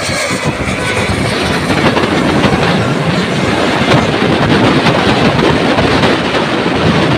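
Heavy road vehicle passing close by, with loud, steady engine and tyre noise and no horn sounding.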